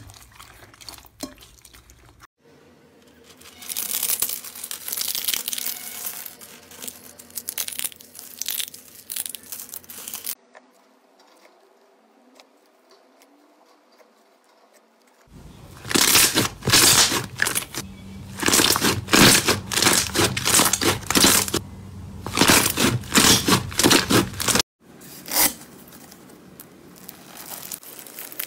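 Hands squeezing, stretching and poking slime in a run of short clips: sticky crackling and popping, with foam beads in the slime crunching. A quieter stretch comes about a third of the way in, and the densest, loudest crackling in the second half.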